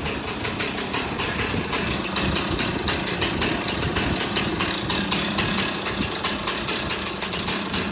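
Stihl 026 (MS 260) chainsaw's two-stroke engine idling steadily. It is still on its old air filter, which the owner blames for the saw running badly.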